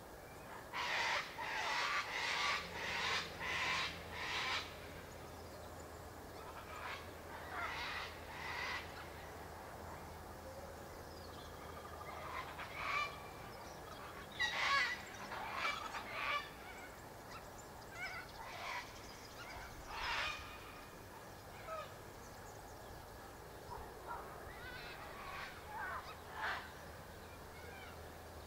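Birds calling: runs of short, harsh, honking calls in clusters, about six in quick succession near the start, then further groups. A faint low steady hum sits beneath much of it.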